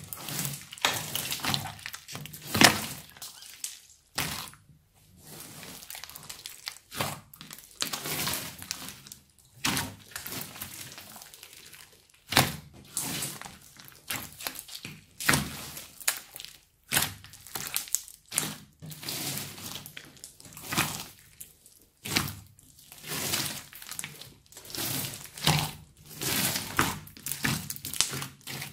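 Hands squeezing and kneading a large mass of thick slime mixed with foam beads: repeated sticky squelches and pops in short bursts, roughly one or two a second.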